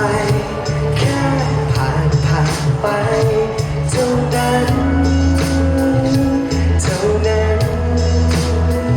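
A live band playing the instrumental intro of a pop ballad, with a steady drum beat under sustained bass and melody notes.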